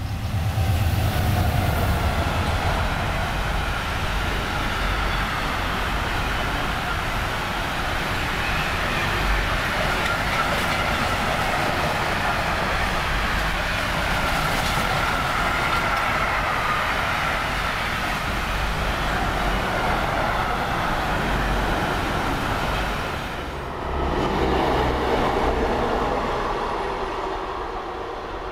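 Siemens Taurus electric locomotive and its container freight train passing close by: a steady loud rumble of wagons running over the rails, with a ringing metallic tone. About 23 seconds in the sound cuts to a more distant, fading rumble as a pair of diesel locomotives approaches.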